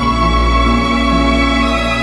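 Background music of slow, long held notes, led by bowed strings, with the chords changing slowly.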